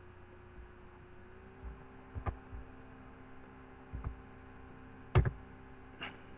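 Four separate clicks from a computer mouse and keyboard, the loudest about five seconds in, over a steady electrical hum.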